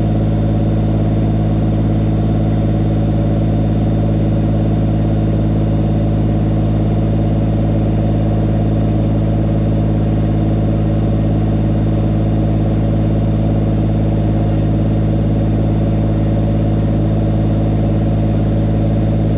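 Kubota BX25 subcompact tractor's three-cylinder diesel engine running steadily above idle to drive the hydraulics.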